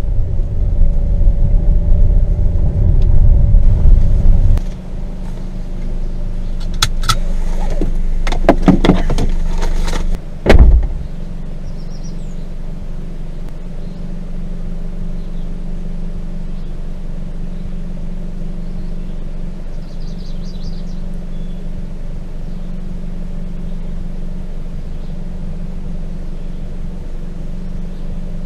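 Car crawling along a rough dirt forest track: a loud low rumble for the first few seconds, a run of knocks and rattles from the body and suspension, one heavy thump about ten seconds in as it drops over a bump, then a steady engine and tyre hum.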